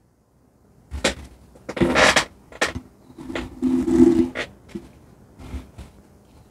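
Handling noise close to a studio microphone: a string of irregular rubbing and scraping sounds as a hand and sleeve brush past it, loudest around the middle.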